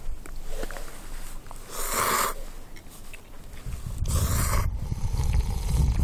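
A person slurping cup ramen noodles: two short, noisy slurps, about two seconds in and again a little after four seconds, with a low rumble underneath in the second half.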